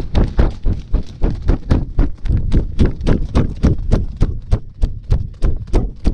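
Quick footsteps on the forest floor, an even run of thumps at about four a second.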